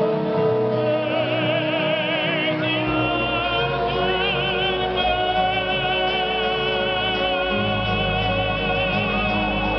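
Cape Minstrel troupe choir singing long held chords, with a soloist singing through a microphone above them in a wide, wavering vibrato that comes in about a second in.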